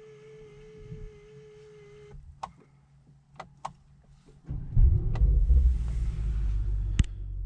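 A small electric motor whirs steadily for about two seconds, followed by a few clicks. About four and a half seconds in, the Mercedes-AMG GT 63 S's 4-litre twin-turbo V8 starts with a loud flare of revs, then settles toward a deep idle, with a sharp click near the end.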